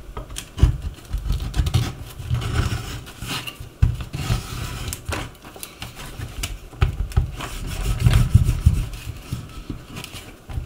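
Irregular knocks, clicks and short scrapes of hand tools and a shoe being handled on a workbench, with dull bumps against the bench.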